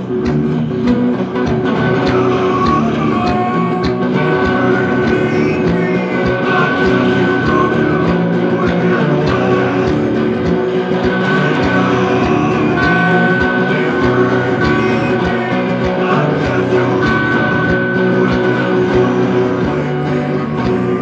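Live blues-rock music led by an electric guitar, played loud over a steady beat.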